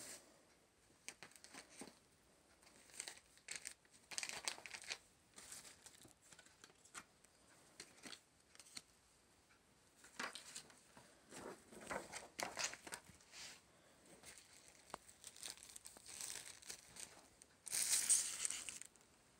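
Clear plastic sleeve and paper packaging crinkling and rustling as they are handled, in scattered bursts, with the loudest crinkle near the end.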